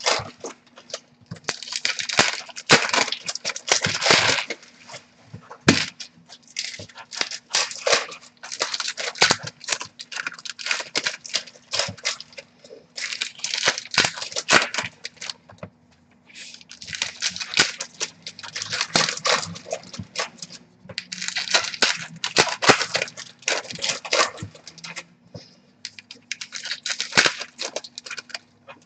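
Baseball card pack wrappers being torn open and crinkled, with cards being handled, in quick irregular bursts broken by short pauses.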